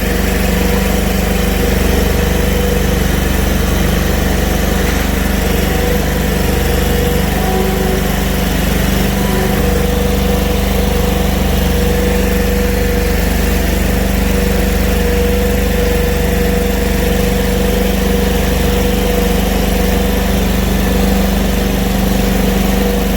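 Engine running steadily at a constant speed, driving a TMR feed mixer while cattle are fed.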